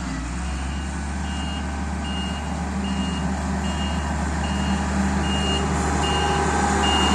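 Reversing alarm on heavy earthmoving machinery beeping in an even series, a little more than once a second, over the low, steady running of a diesel engine that grows gradually louder.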